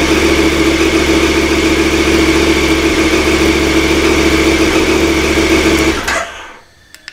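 KTM 1290 Super Adventure R's V-twin engine idling steadily, then switched off about six seconds in, running down and stopping within half a second. A small click follows near the end.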